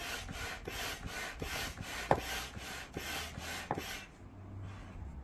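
Hand air pump being worked to inflate a flood barrier's upper chamber: rhythmic rushing strokes, about three a second, with a few sharp clicks. The strokes stop about four seconds in, once the chamber is pre-inflated.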